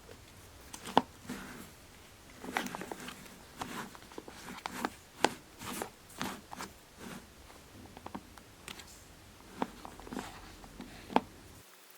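Irregular light clicks, taps and knocks of small objects being handled and set down while crafting, a dozen or so at uneven spacing, a few sharper knocks with a short ring.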